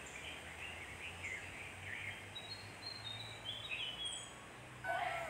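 Birds chirping in the background, with a few high whistled notes in the middle, over a faint low steady hum. Near the end a held musical tone starts.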